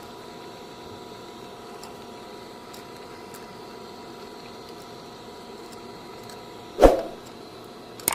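Steady low hum and hiss from a stovetop pan of crabs cooking in bubbling water. Near the end comes a single sharp clank, typical of metal tongs knocking against the pan.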